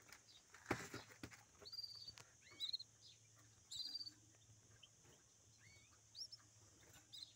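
Faint, short, high chirps from caged finches calling now and then, with a few soft clicks about a second in.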